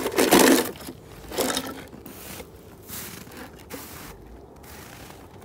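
Toy cars scraping on a hard surface: a loud scrape at the start, a shorter one about a second and a half in, then softer scraping with small clicks.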